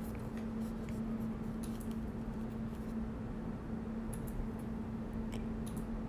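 Faint rustling and light clicks of trading cards being handled, over a steady low electrical hum.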